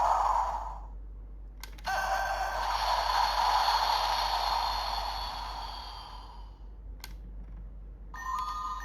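Electronic sound effects from an Ultraman Trigger DX toy's small speaker: a click, then a long shimmering chime with held tones that slowly fades, another click, and beeping electronic tones starting near the end.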